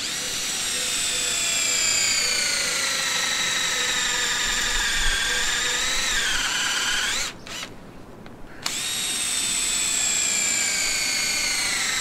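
Cordless drill with an inch-wide spade bit boring holes into a wooden branch: a motor whine that slowly falls in pitch as it cuts. It stops about seven seconds in, then starts again a second and a half later and falls in pitch again.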